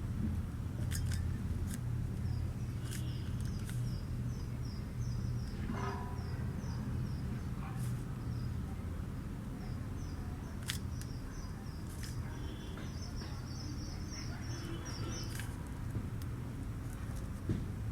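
Scattered sharp plastic clicks from a 3x3 Rubik's Cube being turned, over a steady low hum. A bird chirps over and over in the background, a few short high chirps a second for most of the stretch.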